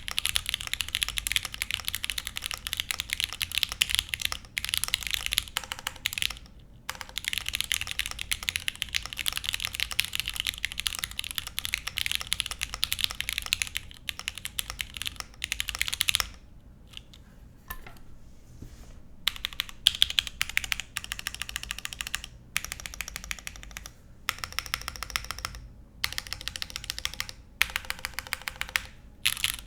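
Fast typing on a gasket-mounted Neo Ergo mechanical keyboard with lubed Gateron X linear switches on an aluminum plate and no foam: a clean, clacky clatter of keystrokes. Continuous typing runs through the first half with brief stops, then comes in shorter bursts with pauses between.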